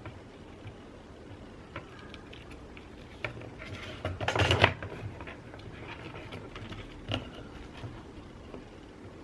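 Small clicks and taps of phone parts and tools being handled during reassembly, with one louder rustling scrape about four seconds in.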